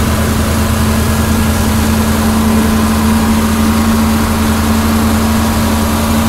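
John Deere 4430 tractor's six-cylinder diesel engine running steadily while pulling a sprayer, heard from inside the cab as an even, unchanging drone.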